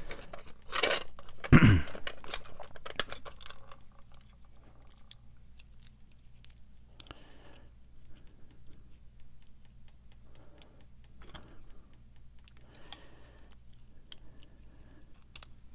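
Small metal clicks and rattles of a padlock's Schlage lock cylinder being handled and taken apart with a shim, with a louder knock about a second and a half in and light scattered clicks after.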